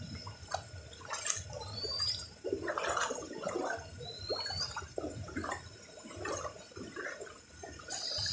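Floodwater flowing, with rain falling on its surface and irregular splashing. Two short rising whistles sound about two and four seconds in.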